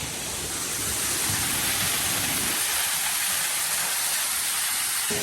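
Waterfall pouring into a pool: a steady rushing hiss, with some low rumble that drops away a little past halfway.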